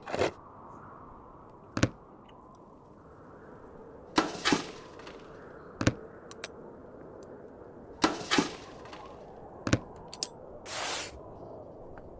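A series of short, sharp taps and knocks at irregular intervals, about seven in all, one of them a doubled knock, with a longer scraping or rustling burst near the end, over a steady faint hiss.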